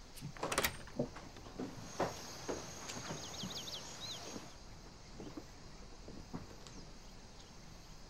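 A door latch clicks sharply about half a second in, followed by soft footsteps. A few quick high bird chirps come around the middle.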